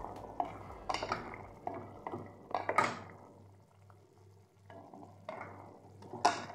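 A spatula stirring chicken livers in sauce in an aluminium pot, with scattered scrapes and knocks against the pot. There is a pause of about a second and a half in the middle.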